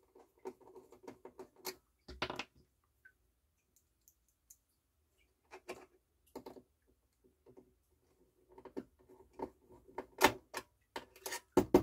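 Small clicks, taps and rustling of hands fitting small metal and plastic parts of a turntable's tonearm lift mechanism, with a quiet pause in the middle and a couple of sharper clicks near the end.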